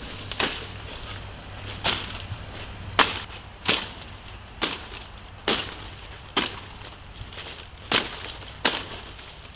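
Machete chopping through leafy undergrowth stems: about nine sharp cuts, roughly a second apart.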